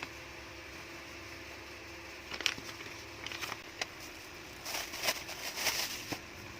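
Short bursts of rustling and crackling, like packaging or other items being handled. They come in a few brief bouts, with a longer, denser bout in the second half, over a steady low hum of room noise.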